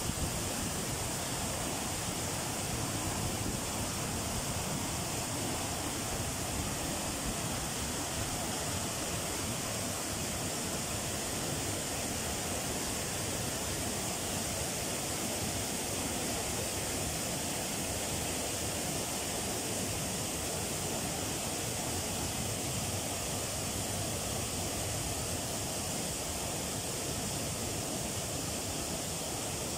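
Water pouring steadily over a stepped river weir, a continuous even rush of cascading water.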